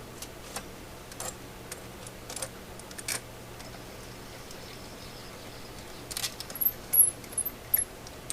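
Small metal parts being handled: scattered light clicks in the first few seconds, then a cluster of sharper, high metallic clinks from about six to eight seconds in.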